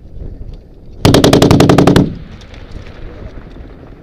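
A machine gun fires one rapid burst of about a dozen rounds, lasting about a second and starting about a second in. It is much the loudest sound here, over a low rumbling background.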